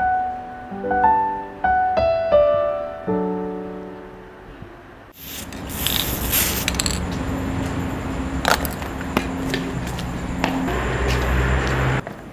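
Slow solo piano notes ring and fade one after another. About five seconds in they give way abruptly to a steady hiss with scattered sharp clicks and rattles from a spray-paint can.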